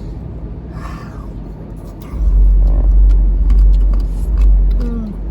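A deep, steady rumble that jumps much louder about two seconds in, with scattered light clicks and a faint voice now and then.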